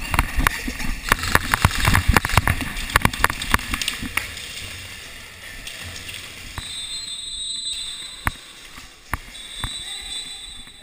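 Airsoft gunfire: a dense clatter of rapid shots and BBs striking the barriers for about four seconds, thinning to a few single sharp shots. A high steady tone sounds twice, each for about a second, near the end.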